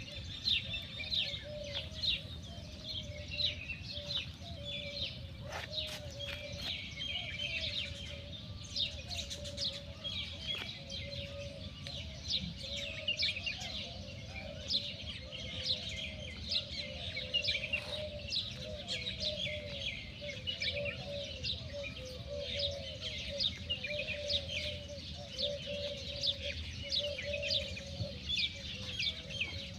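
A dense chorus of many small birds chirping and twittering without a break, with a steady wavering chatter of lower bird calls underneath.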